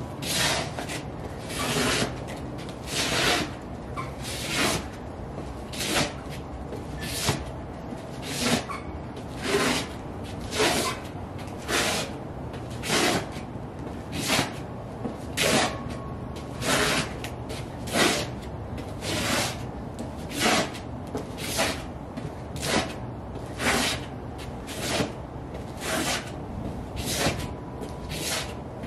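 Sheepskin UGG boots scuffing and sliding on a concrete floor in a steady rhythm, a short gritty scrape about every second, over a low steady background hum.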